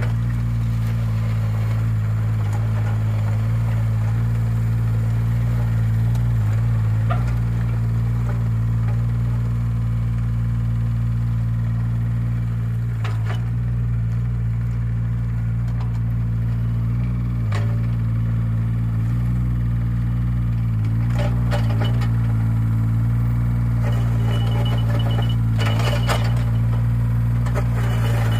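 JCB 8018 mini excavator's diesel engine running steadily under work. Several clinks and scrapes of gravel as the bucket and dozer blade spread and level it, more of them in the last few seconds.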